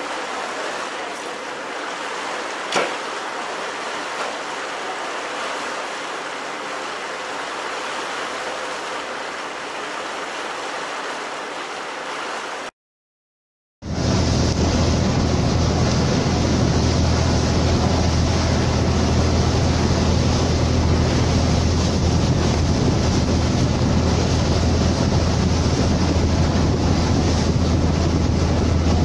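Water rushing past a moving ferry's hull, with a faint hiss at first and one small click about three seconds in. About halfway through the sound drops out for a second, then comes back louder: a steady low engine drone over the churning wake.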